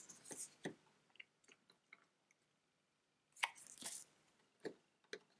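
Faint rustling and clicking of paper and cardboard as a booklet and punchboard token sheets are handled in a board-game box, with a slightly louder burst of handling about three and a half seconds in.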